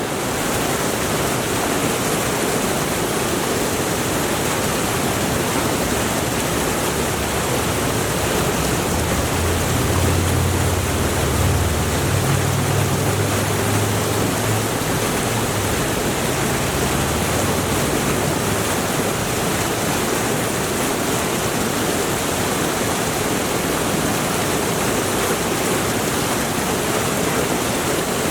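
Mountain river rushing and splashing: a steady, unbroken wash of flowing water. A low rumble swells and fades beneath it in the middle.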